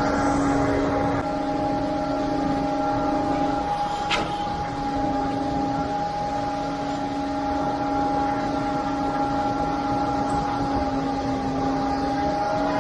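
Concrete pump truck's engine and pump running steadily, a constant pitched hum with several overtones. A single sharp snap sounds about four seconds in.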